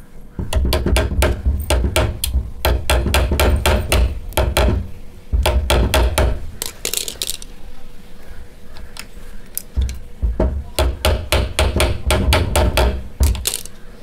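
Quick metal-on-metal taps of a hammer on a screw held as a punch against the rivet pin of a metal door stopper, knocking the broken rivet out of its hinge. The taps come about four or five a second, in two long runs with a pause between them.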